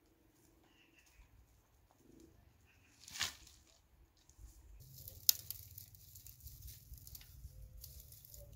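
Dry brushwood twigs hitting the ground with a brief rustling crash about three seconds in, then continuous crackling and rustling of the dry twigs being handled, with one sharp snap a little after five seconds.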